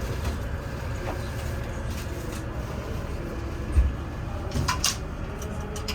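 Steady low rumble of a diesel passenger train standing at the platform, with one dull thump about four seconds in and a few sharp clicks just after.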